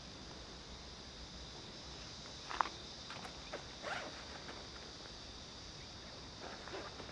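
Steady high-pitched chorus of insects, with a few short crunching scuffs close by, about two and a half and four seconds in.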